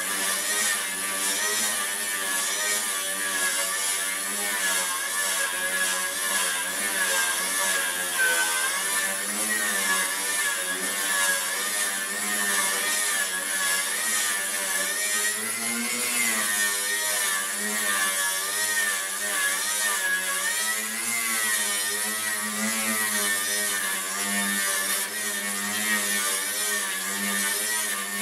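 Angle grinder with a wire brush running steadily against a rusty steel sheet, scrubbing off the rust. Its motor whine wavers slightly in pitch as the brush is pressed and moved over the metal.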